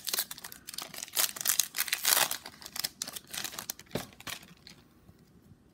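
Foil wrapper of a Topps baseball card pack crinkling as it is torn open by hand. The crackle stops about four and a half seconds in.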